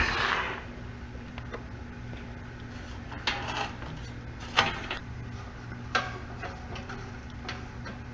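Metal panels and parts of a disassembled toaster oven being handled: a short scrape at the start, then four separate clanks and taps spread over the next few seconds, over a low steady hum.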